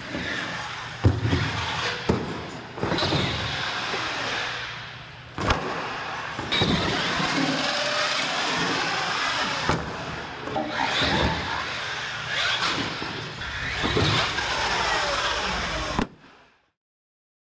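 Radio-controlled monster truck driving hard: its motor and gears whine, rising and falling with the throttle, with repeated sharp knocks as it lands jumps and hits the ramps. The sound cuts off suddenly near the end.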